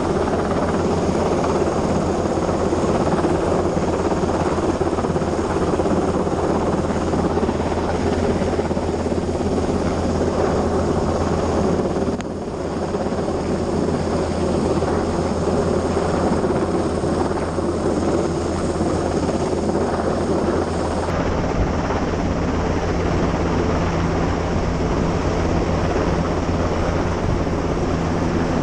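Coastguard helicopter hovering close overhead, a loud, steady rotor and engine din, mixed with rushing wind and sea from the lifeboat under way. The din dips briefly about twelve seconds in.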